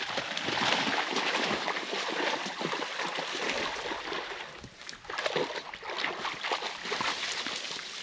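Dry grass and brush rustling and crackling as someone pushes through it, strongest in the first few seconds and again about five seconds in.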